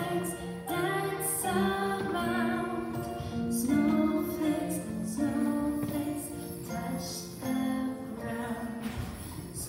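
A kindergarten choir singing a Christmas song with musical accompaniment.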